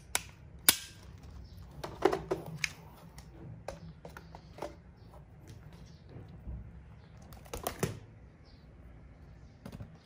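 Scattered sharp clicks and light knocks from molded-case circuit breakers being handled, about a dozen in all with a quick cluster near the end, over a faint steady low hum.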